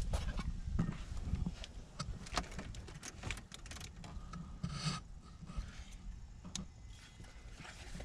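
Handling noise of fitting a replacement door speaker: scattered plastic clicks and rubbing as its wiring plug is pushed into the door harness and the speaker is brought up to its mounting bracket.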